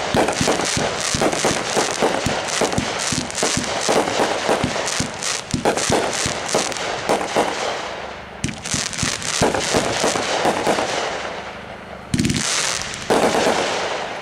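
World Class 'Fighting Rooster' 30-shot firework cake firing: a rapid, dense string of shots and bangs with crackle, thinning briefly about eight seconds in, then more shots and a couple of heavier bursts near the end before it dies away.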